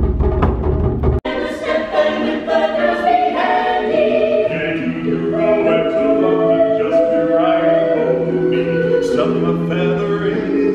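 Japanese taiko drums being struck, cut off suddenly about a second in, then a mixed men's and women's a cappella choir singing in several parts.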